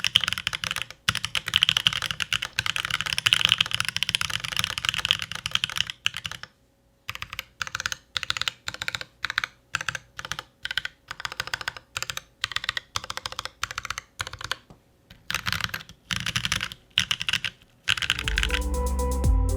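Typing on a mechanical keyboard with lubed Gazeww Boba U4T tactile switches on a brass plate under GMK keycaps. It opens with fast continuous typing, pauses briefly, then goes on as single keystrokes and short runs of key presses. Electronic music with heavy bass comes in near the end.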